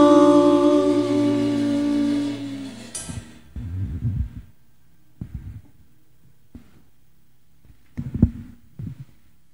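The final held chord of a worship song, keyboard and voices, fades away and stops about three seconds in. Then come a few dull thumps and knocks of handheld microphones being handled and set back into their stands, with a faint low hum between them.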